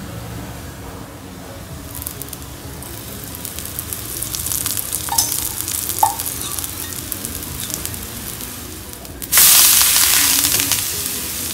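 Adai batter frying on a hot dosa griddle, the sizzle growing steadily, with two light ladle clicks about five and six seconds in. About nine seconds in the adai is turned over onto the hot griddle and the sizzle suddenly gets much louder, then fades.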